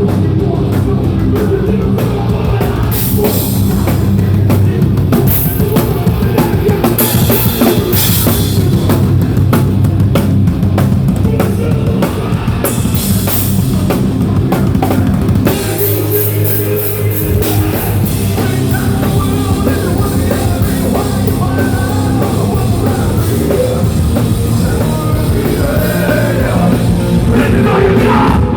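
Loud live hardcore band playing through a PA: distorted guitars, bass and pounding drums with cymbal crashes. About halfway through, the low end drops out for a second or two in a short break, then the full band comes back in.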